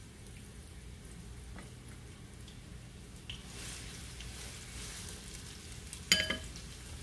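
Sliced onions beginning to fry in hot oil in a nonstick pan, a soft sizzle that grows louder and crackles as a wooden spatula stirs them from about halfway. About six seconds in comes a sharp knock that rings briefly, the loudest sound.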